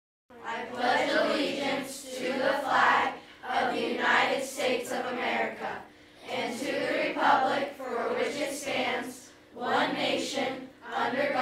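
A group of voices reciting the Pledge of Allegiance in unison, phrase by phrase, with short pauses between phrases.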